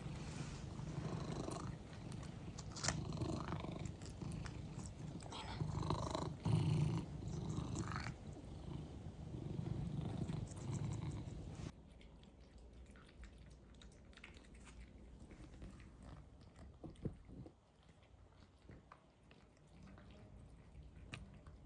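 Two cats licking their lips and chewing close up, over a low purring rumble. About twelve seconds in it drops to a quieter stretch of soft licking and chewing as they eat wet food from bowls.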